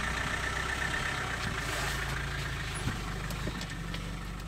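Safari vehicle's engine idling steadily, with a few faint knocks near the middle.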